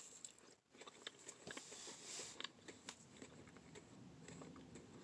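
Faint close-up chewing of a soft marshmallow Peep, with small wet mouth clicks and a short hiss about two seconds in.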